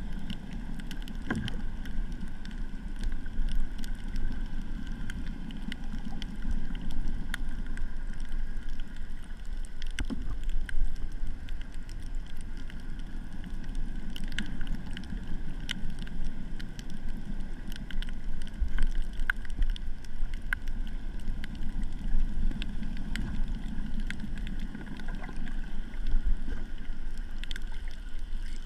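Underwater ambience through a GoPro's waterproof housing: a steady muffled rumble of moving water, dotted with scattered sharp clicks.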